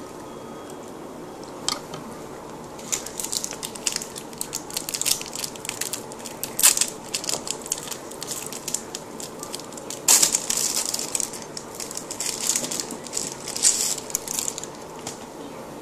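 Close-up crunching and crackling of a mouthful of dry Milo chocolate malt powder being chewed, in dense irregular bursts from about two seconds in until near the end.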